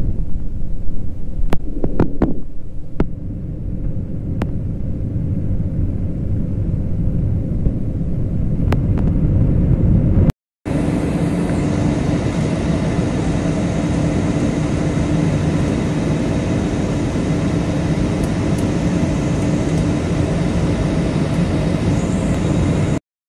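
Steady rumble of a jet airliner's engines and rushing air, heard inside the cabin while climbing after takeoff, with a few clicks in the first few seconds. It breaks off briefly about ten seconds in, then carries on as a steadier rumble with a faint hum.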